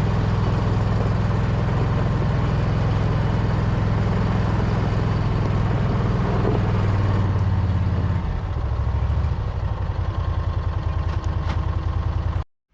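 An engine running steadily at low speed, like an idle. Its low hum drops in pitch about eight seconds in, and the sound cuts off abruptly near the end.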